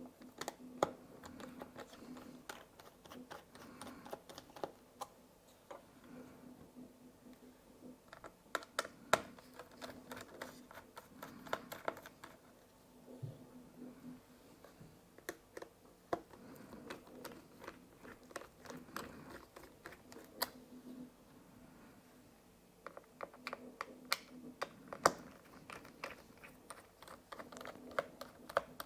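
Small irregular clicks and taps of a T5 Torx screwdriver working the battery screws out of a MacBook Air A1466, the metal bit and loose screws clicking against the laptop's case, over a faint steady hum.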